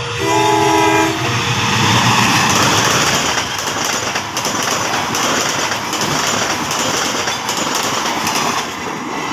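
A CC 201 diesel-electric locomotive sounds a short horn blast of several notes at once, about a second long, then passes at speed hauling a long freight train of cargo vans. A steady rush of wheels on rail follows, with clacks at the rail joints.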